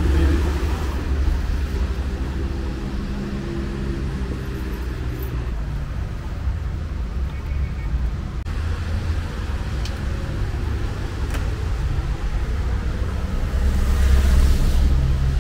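Road traffic rumbling steadily. A vehicle passes closer and louder near the end.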